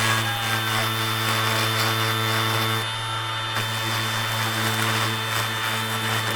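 Small electric power tool running steadily at constant speed, its motor humming under a rasping hiss, smoothing off the burr around a hole drilled in a metal pipe strap.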